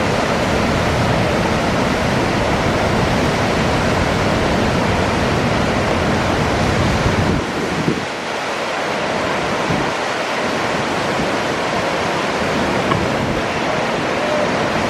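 Steady rushing of whitewater rapids at the Potomac River's Great Falls, with wind rumbling on the microphone that drops away about halfway through.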